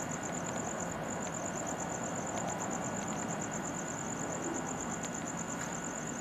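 A cricket trilling in a fast, even string of high pulses, broken briefly about a second in, over a steady low background rumble.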